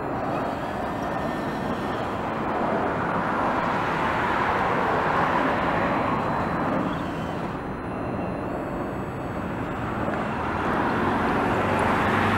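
Road traffic: passing cars, each a rush of tyre and engine noise that swells and fades, one about five seconds in and another building near the end.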